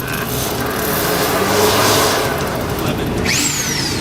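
Steady machine noise from motors running, swelling around the middle, with a sharp whine that falls quickly in pitch about three seconds in.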